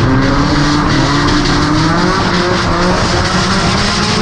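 Car engines held on throttle through a drift on a wet track, their pitch wavering only slightly, over a constant hiss of tyres on wet asphalt.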